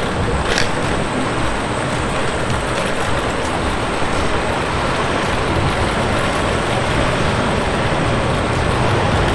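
Steady, even noise of heavy road traffic on a busy street, mixed with the rolling noise of riding along a bike lane beside it.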